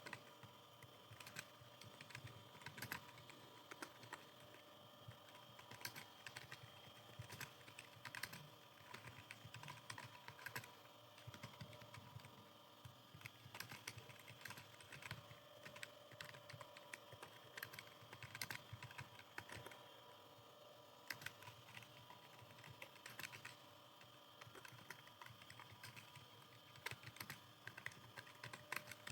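Computer keyboard being typed on continuously: a quick, irregular run of key clicks, several a second, with no pauses.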